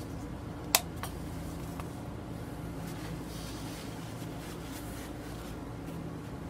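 Soft rustling of a paper towel being crumpled and wadded in the hands, over a steady low hum, with one sharp click just under a second in.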